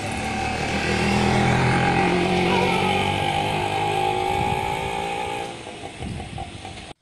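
A motor vehicle engine passing close by, growing louder to a peak about a second in, then fading away. It cuts off suddenly near the end.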